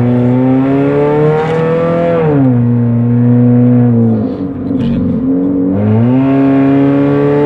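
Chevrolet Cruze's engine and loud exhaust under acceleration, heard from inside the car with the windows closed. The note rises, drops sharply about two seconds in as the automatic gearbox changes up, eases off briefly around four seconds in, then climbs again from about six seconds in.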